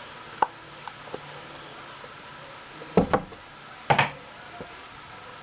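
Hard objects knocking and clattering on a hard surface: a single sharp knock about half a second in, then two louder clusters of clatters about three and four seconds in.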